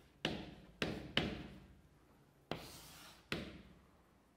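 Chalk tapping and scraping on a blackboard as words are written: three sharp taps in the first second and a half, a longer stroke about two and a half seconds in, then one more tap. Each dies away with a short echo.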